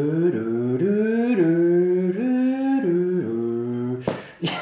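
A man's voice imitating the traction motor whine of a Class 466 Networker electric train pulling away, hummed as a series of rising glides in pitch, stepping up and then dropping back. It stops about four seconds in.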